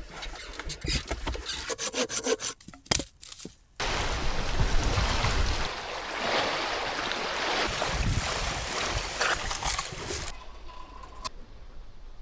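Sharp clicks and knocks, then from about four seconds in a sudden switch to steady rushing water, like a swollen river or heavy rain, for about six seconds, dropping to a quieter stretch near the end.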